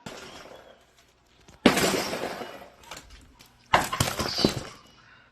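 Sledgehammer blows smashing an old concrete sink, each strike followed by the crunch of concrete breaking up. Four blows: a lighter one at the start, the loudest about a second and a half in, and two in quick succession near the end.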